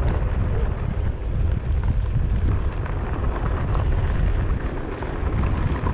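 Wind buffeting the microphone while riding, a steady low rumble, with small knocks and rattles from rolling over a rough, bumpy dirt road.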